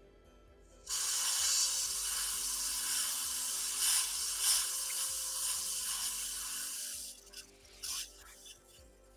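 A loud steady hiss starts suddenly about a second in and runs for about six seconds, then two short hisses follow; faint background music underneath.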